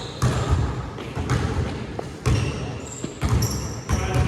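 A basketball bouncing on the court, thudding about once a second, with high-pitched sneaker squeaks near the end.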